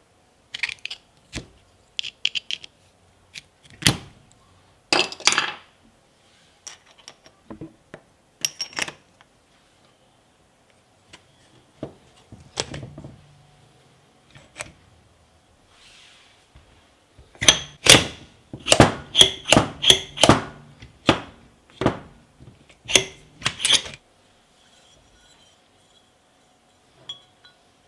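Parts of a Bosch GSH 5 E demolition hammer being handled and fitted by hand: scattered clicks, clinks and knocks of metal and plastic parts, with a close run of knocks over several seconds in the second half.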